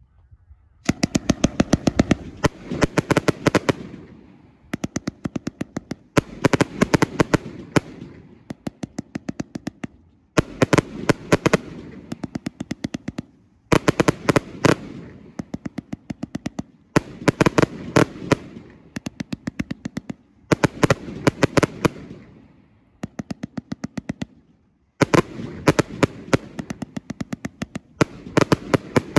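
Norse Rocket firework bursts: about ten clusters of rapid crackling pops, a new cluster every two to four seconds, each trailing off in a short echo.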